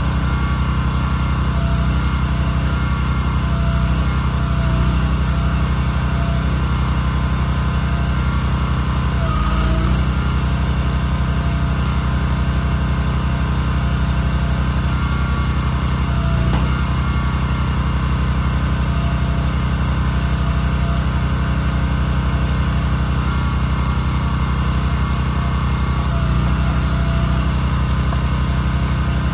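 Engine of a Wolfe Ridge firewood splitter running steadily as logs are split, its note dipping briefly once about nine seconds in.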